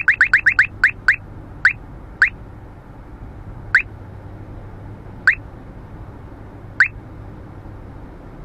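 Uniden R3 radar detector sounding its Ka-band alert: short rising chirps, rapid for the first half-second, then slowing to single chirps about a second and a half apart as the radar signal weakens. Low road noise inside the car cabin underneath.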